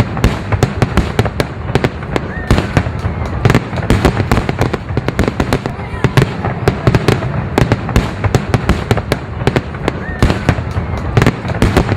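Fireworks going off: a rapid, unbroken run of sharp crackling pops, several a second.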